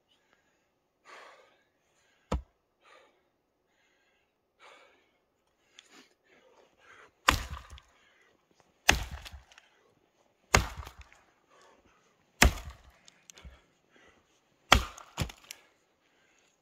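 Tuatahi work axe chopping into an old, semi-dry, partly frozen sugar maple log: five heavy blows about every second and a half to two seconds, the last followed closely by a lighter second strike. Before them come a few faint knocks and one sharp tap about two seconds in.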